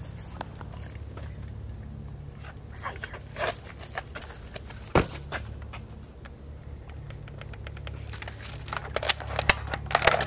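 Footsteps scuffing on concrete with camera handling noise and scattered clicks. There is one sharp click about halfway through, and a quick run of louder clicks and rustles near the end.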